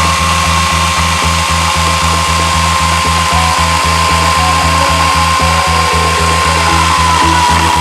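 Garland BULK 316 electric chainsaw motor running with a steady high whine that dips briefly near the end, under background music with a steady beat.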